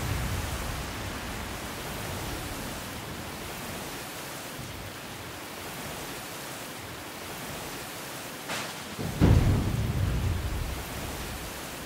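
Steady rain hiss with a thunderclap: a sharp crack about eight and a half seconds in, then a low rumble that fades over a couple of seconds.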